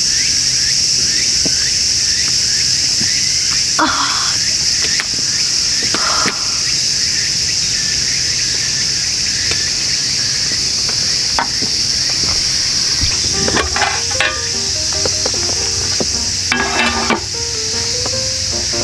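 Steady, shrill chorus of insects from the surrounding woods, with a couple of short sounds about 4 and 6 seconds in. Background music with a melody comes in about 13 seconds in.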